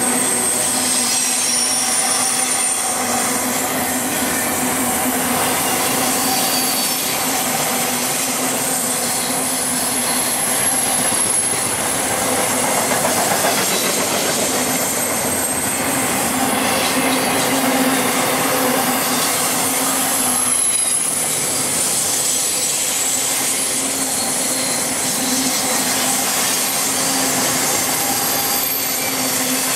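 Double-stack intermodal freight cars rolling past at speed: a steady rumble and rattle of steel wheels on rail, with thin high-pitched wheel squeals coming and going.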